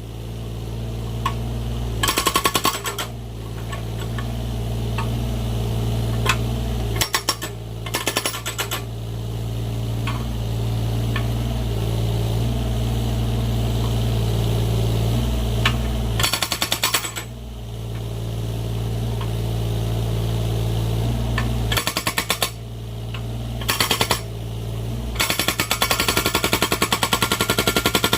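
Excavator-mounted hydraulic breaker hammering in rapid bursts to split firewood logs, over the excavator's steady diesel engine. Several short bursts of hammering come between stretches of engine, and the hammering runs on without a break for the last few seconds.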